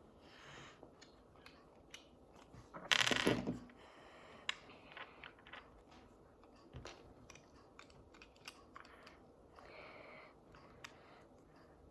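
Small plastic toy parts being handled and clicked together during assembly: scattered light clicks and taps, with one louder rustle lasting under a second about three seconds in.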